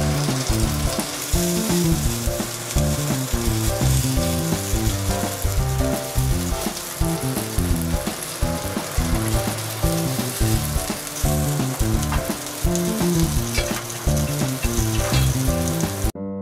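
Gyoza frying in oil in an enamelled cast-iron frying pan, with a steady sizzle. Background music of quickly changing notes plays under it.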